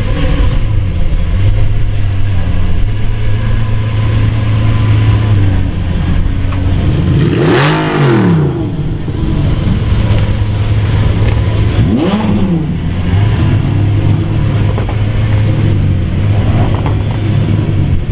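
Lamborghini Aventador's V12 idling steadily and loudly, blipped twice: one big rev about halfway through that climbs and falls back, and a shorter rev about two-thirds of the way through.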